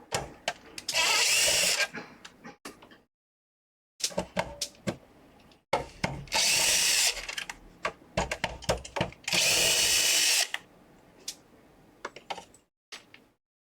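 Cordless electric screwdriver with a T9 Torx bit running in three short bursts, each about a second long, backing out the console's screws. Between the bursts there are small clicks and knocks of the bit and screws being handled.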